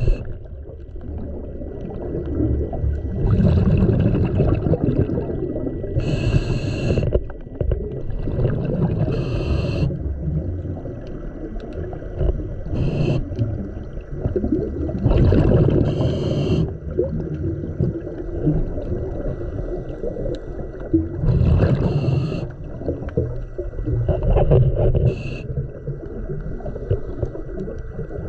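Scuba diver's regulator underwater, picked up through the camera housing: bursts of exhaled bubbles about every three seconds over a constant low rumble of water noise.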